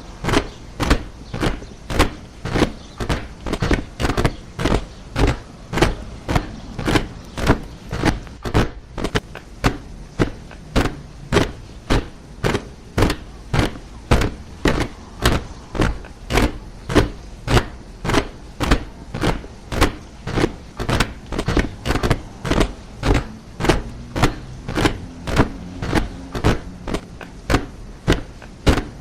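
Soldiers marching in step, their boots striking the ground together in an even beat of about two steps a second.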